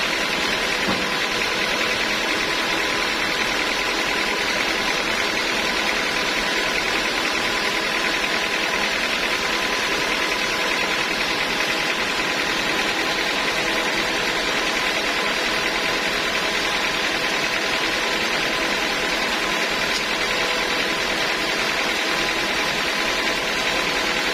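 Sawmill machinery running steadily, a constant mechanical hum with a fixed whine and no change in pace or load.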